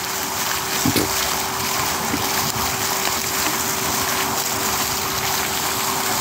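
Fountain jets splashing into a shallow pool: a steady rush of falling water, with a faint steady hum underneath.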